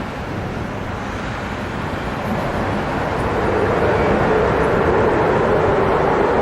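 Aircraft engines, a steady noise growing louder as the plane draws near, with a droning tone coming in about three seconds in.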